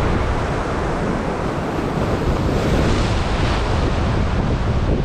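Sea surf breaking and washing ashore, with a wave's hiss swelling about halfway through, and wind buffeting the microphone.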